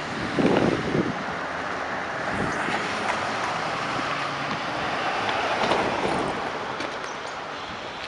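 Street traffic noise: a steady hiss that swells and fades as vehicles pass, with a brief gust of wind on the microphone about half a second in.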